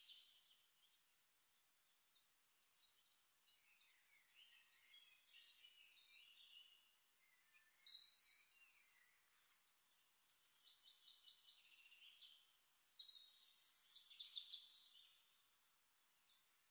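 Faint, high-pitched bird chirps in short scattered spells, strongest about halfway through and again near the end.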